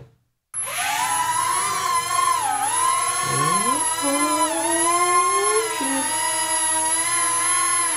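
Air Hogs Millennium Falcon toy quadcopter's four small rotors whining as it lifts off and hovers, starting about half a second in. Several pitches waver up and down as the motors speed up and slow down, one gliding up about halfway through, over a thin steady high-pitched whine.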